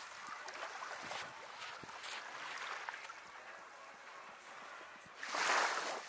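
Small sea waves washing onto a sandy shore, with one louder wash rising and falling about five seconds in. A few short scuffs or rustles come earlier.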